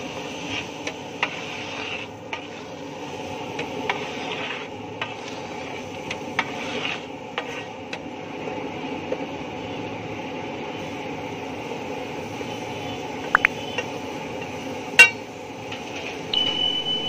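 A flat steel scraper clinks and scrapes on a large flat metal griddle as rice pulav is tossed and spread, with scattered sharp clicks over a steady background noise. A loud metallic clack comes about fifteen seconds in, and a steady high tone starts near the end.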